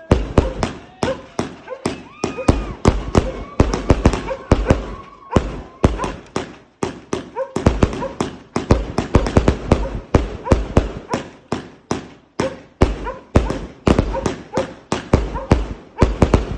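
Fireworks going off in a dense, irregular barrage of loud bangs, several a second, with brief tones between the reports.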